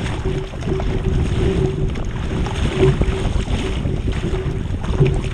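Surf ski paddling on the open sea: water rushing and splashing against the hull and paddle blades, with a swell of splashing every second or two, under steady wind buffeting the microphone.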